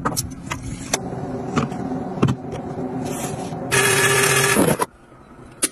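Small collapsible portable washing machine running, its motor humming with scattered clicks. Near the end it gives a louder rushing whir for about a second as the spin basket whirls the clothes, then cuts off abruptly.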